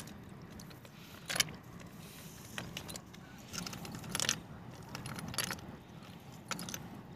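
River pebbles clicking and clattering as hands work a nylon cast net on a stony bank: scattered sharp clinks about once a second over a steady low background rush.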